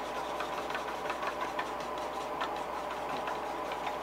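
Rapid, irregular light clicks and taps of acrylic craft paint being mixed by hand on the bench, over a steady hum in the room.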